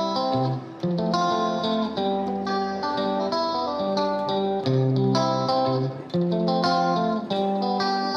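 Background music: a plucked guitar playing a melody of ringing notes.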